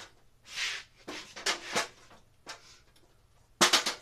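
Knocks and clatter of hard objects being handled and set down, with a short rustle about half a second in. Near the end comes a quick burst of sharp clatter, the loudest part.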